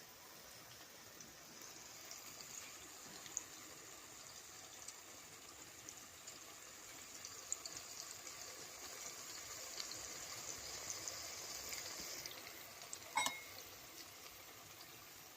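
Corned beef and bitter gourd egg omelette faintly sizzling and crackling in the frying pan on the pan's remaining heat after the burner is switched off, the sizzle dying away about 12 seconds in. A single sharp knock, like a utensil against the pan, about a second later.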